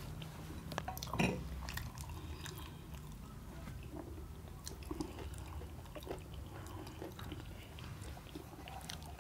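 Chewing of samosa, with soft mouth smacks and small scattered clicks, over a low steady hum.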